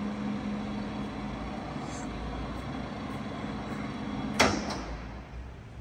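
Mecca Turn 460x1000 engine lathe running with a steady mechanical hum, then a sharp metallic clunk about four and a half seconds in as a control on the headstock is thrown to change the feed direction. The machine runs quieter after the clunk.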